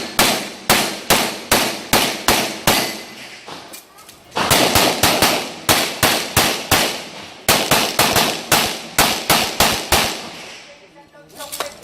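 Gunshots fired in quick succession at about two or three a second, in three strings broken by short pauses about three and seven seconds in, as a competitor shoots a timed stage.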